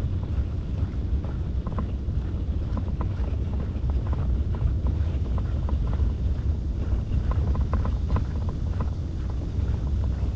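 Wind rumbling steadily on the microphone while riding along a road, with scattered light clicks and rattles.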